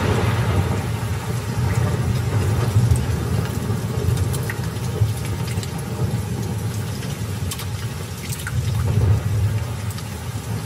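Rain falling steadily with a continuous low rumble underneath and a few faint drip-like ticks.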